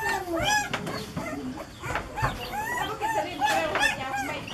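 Several puppies whimpering and yelping, many short rising-and-falling cries overlapping one another without a break.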